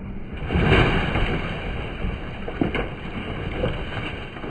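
Wind rushing over the microphone in a gust that builds about half a second in and slowly fades, with a single sharp knock near the three-second mark.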